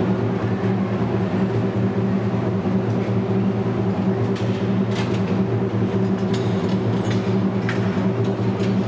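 Steady low droning hum made of several constant low tones, with a few brief sharp sounds from about four seconds in.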